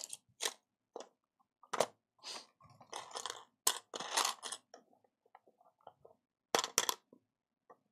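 Rummaging through a bag of small hobby bits: rustling and crinkling with irregular sharp clicks of small pieces, densest a few seconds in.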